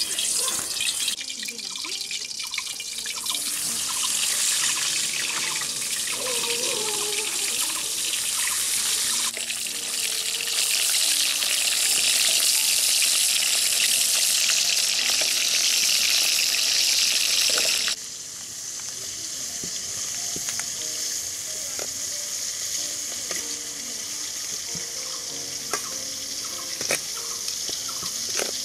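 Food frying in hot oil in an iron wok, a steady sizzle that grows louder and then drops sharply about two-thirds of the way through, with faint background music underneath.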